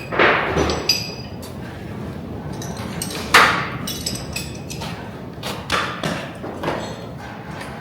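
Hard metal knocks and clanks, about half a dozen at uneven spacing, the loudest about three seconds in. One near the start leaves a short high ring.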